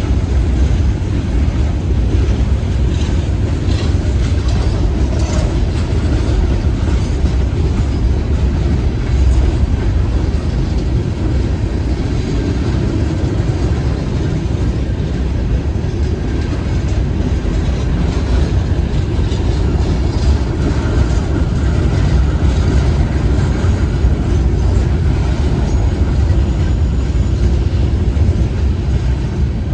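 A passing train rolling by, a loud steady rumble of wheels on rail that holds even throughout.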